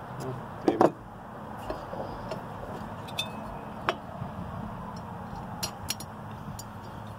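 Handling noise from a chainsaw body and small hand tools while a muffler screw is started with needle-nose pliers: a sharp knock about a second in, a click a few seconds later and a few light ticks, over a steady low hum.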